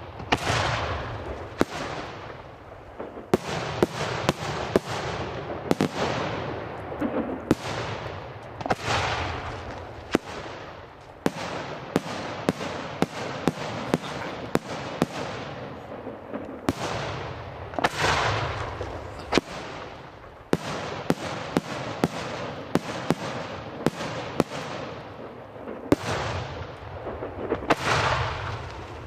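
Aerial firework shells bursting in rapid, irregular succession: sharp bangs about once or twice a second, each trailing off in a fading rumble.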